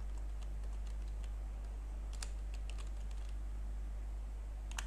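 Computer keyboard being typed on, irregular quick keystrokes as a line of code is entered, over a steady low hum.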